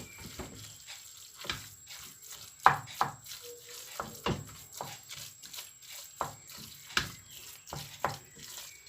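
Metal spoon clinking and scraping irregularly against a cooking pot while minced meat sizzles and is stirred, as more tomato paste is worked into the Bolognese sauce.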